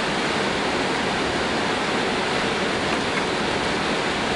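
Steady, even rushing noise on the flight deck of an Airbus A320-200 as it taxis with its engines at idle.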